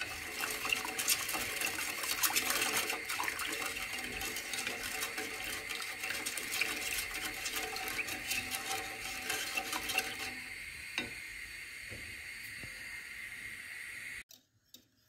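A whisk stirring orange juice, sugar and cornstarch in a pot: the liquid sloshes, with many quick light taps of the whisk against the pot. The stirring goes quieter about ten seconds in, and the sound cuts out briefly near the end.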